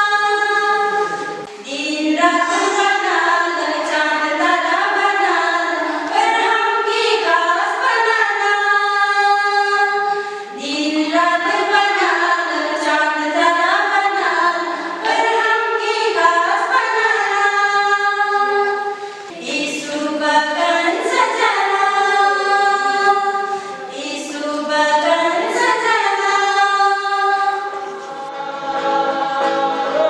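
A small group of women singing a hymn together unaccompanied, in long phrases with brief pauses between them.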